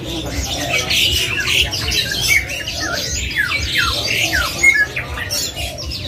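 Several caged songbirds calling at once: quick harsh squawks and many sharp, downward-sweeping chirps overlapping throughout.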